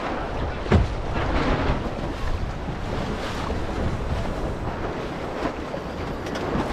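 Wind buffeting the microphone over water rushing past the hull of a J80 sailboat under way, with one loud thump just under a second in.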